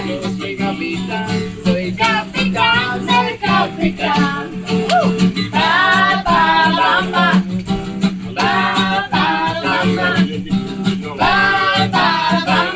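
Acoustic guitar strummed in a steady rhythm, with a voice singing over it; the singing grows stronger about halfway through.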